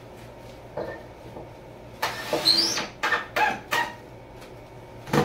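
Cordless drill running into wood in short bursts: it spins up with a rising whine about two seconds in, followed by a few quick trigger pulses. A sharp knock near the end.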